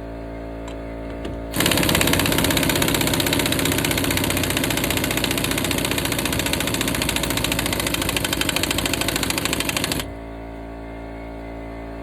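Impact wrench hammering on a differential pinion nut for about eight seconds, a rapid steady rattle that starts about one and a half seconds in and cuts off suddenly near the end. The nut is being driven down to crush the pinion crush washer and seat the pinion bearings.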